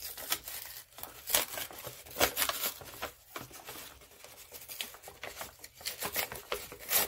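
Brown kraft-paper shopping bag crinkling and rustling in short, irregular bursts as hands fold and pull at it.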